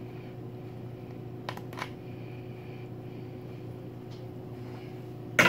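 Steady low room hum, with two faint light clicks of a metal fork against an aluminium foil pan about a second and a half in, and a sudden loud rustle near the end.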